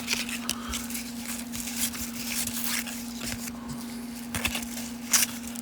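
Baseball cards being handled and flipped through while sorting: light rustles and a few sharper card slaps and clicks, over a steady low hum.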